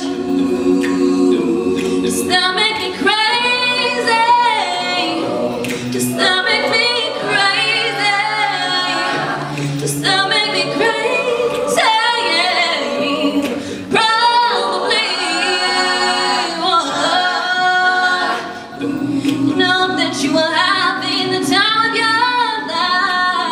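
Mixed youth a cappella ensemble singing: a female lead voice over the group's layered backing vocals, with no instruments.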